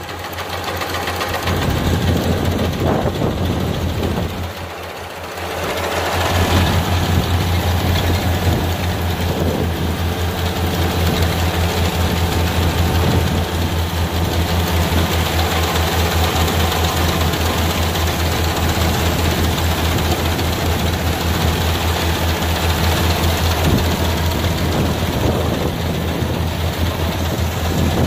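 Kubota R1-551 combine harvester's diesel engine running steadily under load while the machine cuts rice, a continuous low drone with a fast even throb. It dips briefly about five seconds in, then runs louder as the machine comes closer.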